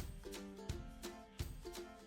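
Background music: an acoustic guitar track with a steady, even beat.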